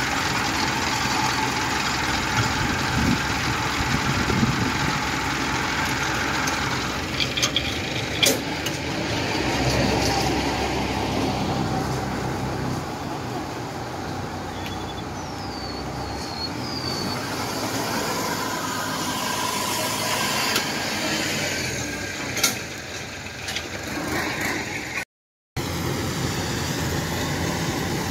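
Farm machine engines running steadily: a tracked rice carrier early on and a rice combine harvester after a brief cut near the end. A few sharp knocks come about eight seconds in, and two short high chirps come midway.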